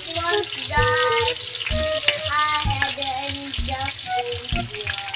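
Chopped onion and garlic sizzling in hot oil in a wok, under background music with a melody and a steady beat.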